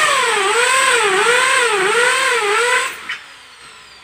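Power drill running with a whine whose pitch dips and recovers about four times as it bears under load, then stops a little before the end and winds down.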